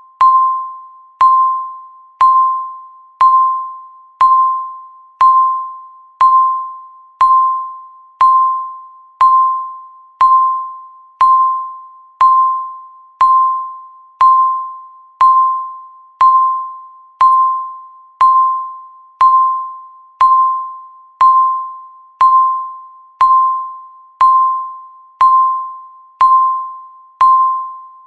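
Countdown timer beeping once a second, marking each second left. Each beep is a single clear electronic tone that starts sharply and fades away before the next.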